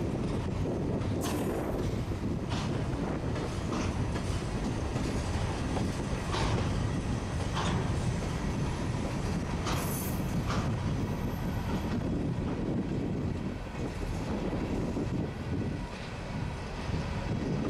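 Freight train of covered hopper cars rolling past: a steady rumble of steel wheels on rail with clickety-clack, and brief high wheel squeals about every second or so.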